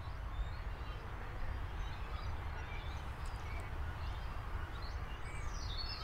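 Birds calling faintly now and then over a steady low rumble, with a few brighter, falling chirps near the end.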